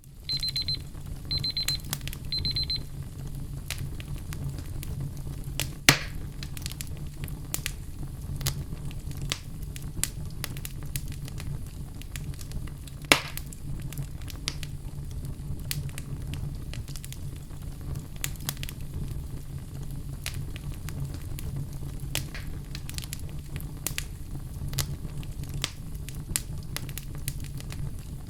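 Pomodoro timer alarm beeping in three quick high bursts at the start, marking the end of a timed session. Then a crackling fire sound effect: a steady low rumble of flames with many small crackles and a few louder pops, at about six and thirteen seconds in.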